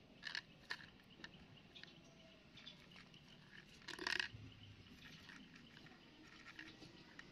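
A cat crunching dry kibble from a plastic tub: faint, irregular crunches, with a louder burst about four seconds in.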